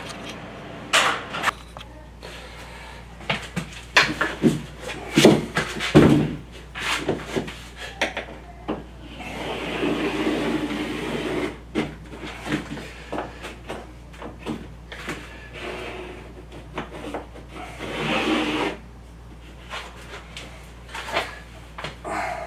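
Hand work on sheetrock: a string of knocks and clicks, with two longer scraping stretches, the first about ten seconds in and the second near eighteen seconds, as a square is cut out of the drywall.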